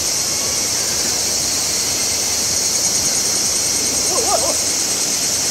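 Steady rush of a shallow river flowing over stones. A short wavering voice calls out about four seconds in.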